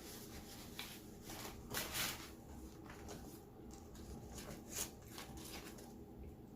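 Close-miked eating noises: irregular chewing and crackly handling of the food, with the loudest crackles about two seconds in and again near five seconds.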